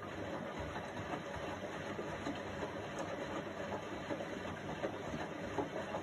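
Indesit front-loading washing machine with its drum turning, wet laundry and water tumbling and sloshing inside: a steady churning noise with irregular small knocks and crackles.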